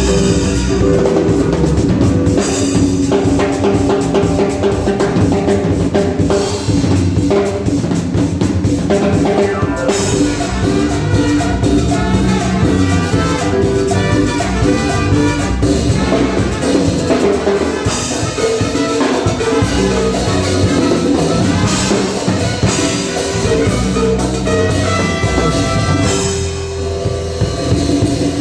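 Live cumbia band playing, with drum kit and bass keeping a steady beat under the other instruments.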